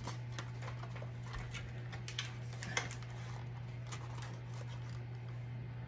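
Quiet kitchen room tone: a steady low hum with a few faint, light clicks and taps.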